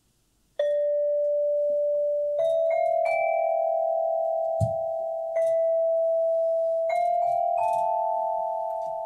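Metallophone struck with a mallet: about eight notes in a slow, unevenly spaced phrase, each ringing on and overlapping the next so the tones build into a lingering chord that slowly fades. A soft low thump about halfway through.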